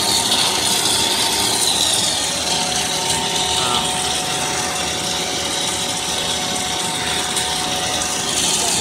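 Corn puff twist snack extruder running steadily, its motor and screw drive making an even mechanical whir with a faint steady whine.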